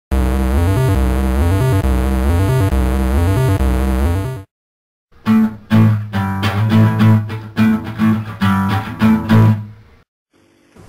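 Music in two parts split by a half-second break: first a dense, steady passage with a stepping bass line, then a rhythmic riff of plucked guitar-like notes over a repeating bass.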